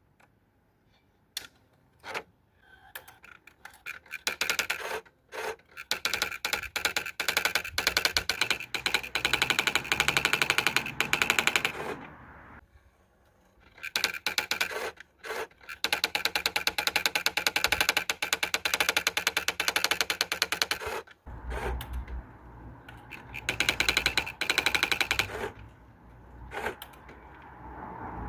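Olivetti ET Personal 55 electronic daisy-wheel typewriter printing its automatic demo: a few single clicks, then long runs of rapid print-hammer strikes, broken by a pause of about two seconds near the middle. About three-quarters of the way in, a low hum sets in beneath the continued printing.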